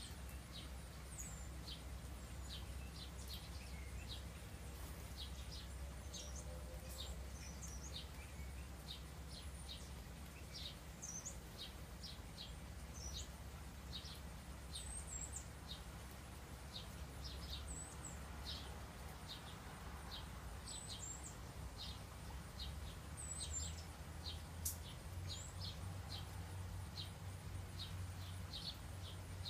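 Small birds chirping: a steady run of short, high chips about once or twice a second, with now and then a higher, sweeping call, over a faint low hum.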